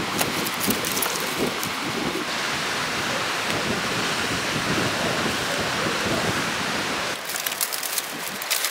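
Dry brushwood and dead twigs crackling and rustling as they are handled. About two seconds in this gives way to a steady even rushing noise for about five seconds, and the twig crackling returns near the end.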